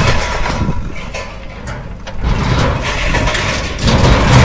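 Diesel engines of a JCB backhoe loader and a tractor running while the backhoe's arm lifts an overturned trolley, getting louder toward the end.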